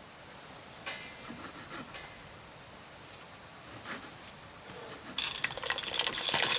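A knife cuts cherry tomatoes on a wooden board, a few soft cuts. From about five seconds in, dried orecchiette pasta pours from a glass jar into a pot of water: a loud, dense stream of small clicks.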